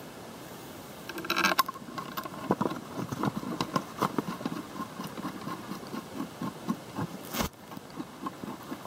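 Small irregular clicks and taps of metal parts being handled and fitted as the two halves of a Powerglide automatic transmission's valve body are lined up and a bolt is started by hand, with one sharp knock about seven and a half seconds in.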